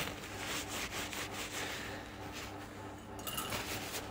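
Cloth rag rubbing over steel valve springs as they are wiped clean, a soft scrubbing that grows fainter after about two seconds.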